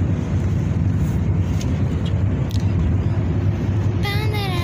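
Car interior noise while riding: a steady low rumble of engine and road, with a few light ticks. A girl's voice starts near the end.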